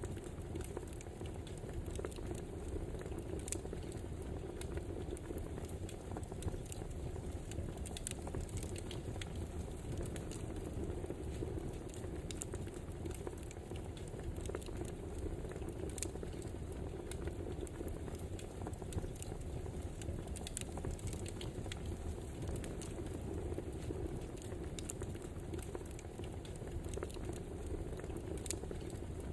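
Wood fire crackling steadily: a low, even rush of burning logs with frequent small pops and snaps at irregular moments.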